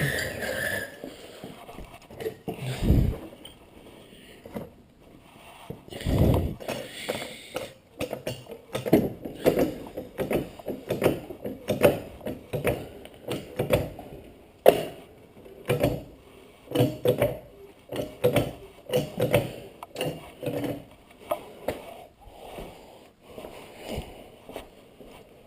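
Hand ratchet wrench clicking in quick, irregular runs of strokes while bolts are worked loose, with two heavier thuds about three and six seconds in.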